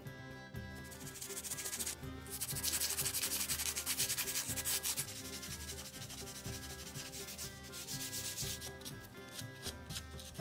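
Hand sanding with a folded sheet of sandpaper on primed wooden buggy wheel spokes and a carved scroll piece. This is the finish sanding of the primer. Steady back-and-forth rubbing that is loudest in the first half, then short quick strokes near the end.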